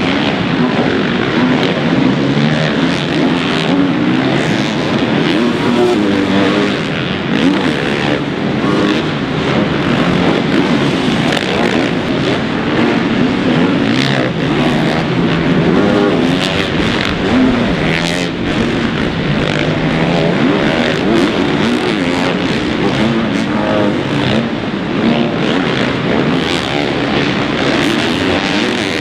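Several supercross dirt bike engines revving at once, each pitch rising and falling as the bikes accelerate and back off, the sounds overlapping without a break.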